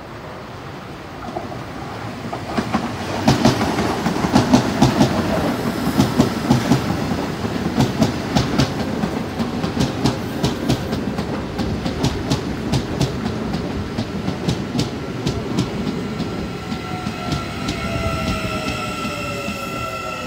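A CPTM Series 9500 electric multiple-unit train pulls into the station and passes close by, its wheels clicking in a rhythm over the rail joints. Near the end, steady high whining tones and a falling whine come in as the train slows.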